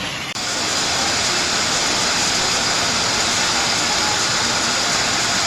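Rushing floodwater giving a steady, even roar with no breaks, which sets in suddenly a fraction of a second in.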